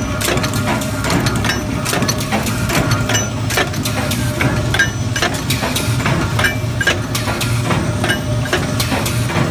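Induction forging machine running at work, with a steady low hum under frequent, irregular metallic clicks and knocks of steel bolt stock being fed and handled.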